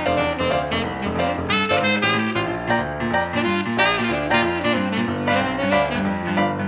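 Jazzy background music with a lead saxophone over piano and a walking bass line.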